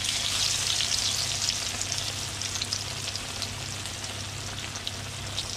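Panko-crumbed cod fillets deep-frying in canola oil at about 180 °C in a wok: a dense sizzle with many small crackles, loudest just after the second fillet goes into the oil and easing slightly after a couple of seconds.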